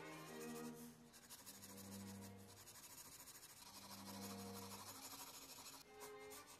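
Faint scratching of a mechanical pencil's 2B graphite on sketch-pad paper in short shading strokes, pausing briefly about a second in and again near the end. Soft background music with long low notes plays underneath.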